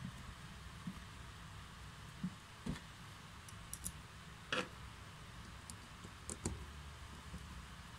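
Scattered small clicks and taps of hands handling a cordless drill's plastic gearbox housing and a screwdriver at its chuck screw. The loudest click comes about halfway through, with a few quicker ones near the end.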